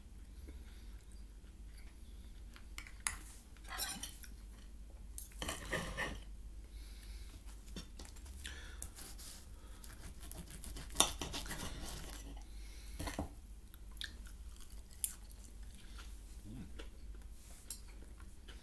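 Close-miked chewing of food, mixed with a metal fork clinking and scraping on a plate. A few sharp clinks stand out at irregular moments among the softer crackly chewing.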